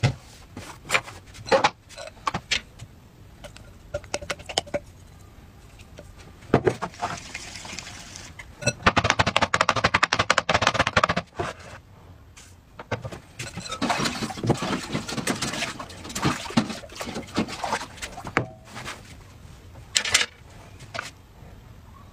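Batter being beaten with a wire whisk in a glass bowl: quick rhythmic scraping and clinking strokes, in two long stretches. Scattered sharp taps and knocks come from the bowl and cake pan being handled.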